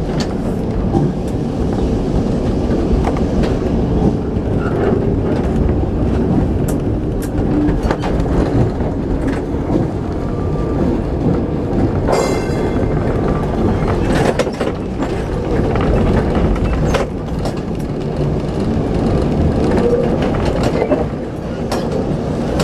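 Lisbon tram heard from on board as it runs over its street rails: a steady rumble of wheels and motor, with scattered clicks and rattles, and a brief ringing tone about halfway through.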